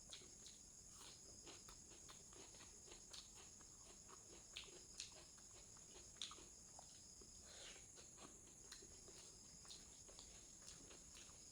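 Faint eating sounds: irregular soft clicks and smacks of chewing a mouthful, a few a second, with a few slightly louder ones near the middle, over a steady faint hiss.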